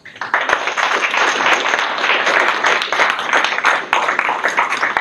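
Audience applauding: many people clapping together, breaking out all at once and holding steady.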